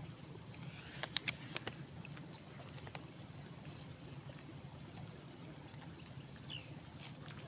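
Steady high-pitched insect chirring over a low rumble, with a few sharp clicks about a second in and a short chirp near the end.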